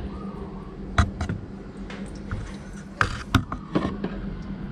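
A few sharp knocks and clicks, about five in all, from handling during work on the car, over a steady low hum.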